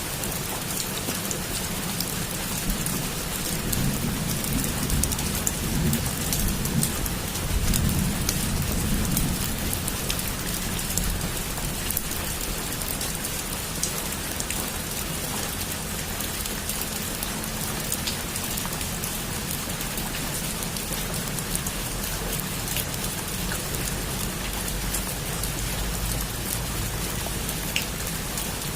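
Heavy rain falling steadily on a rooftop, a dense hiss of countless drops. A low rumble of thunder swells beneath it from about four to ten seconds in.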